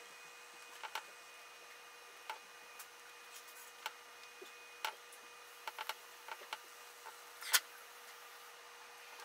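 Scattered light clicks and taps of resin eggs and a resin brush being handled at a silicone tray, the loudest about seven and a half seconds in, over a faint steady hum.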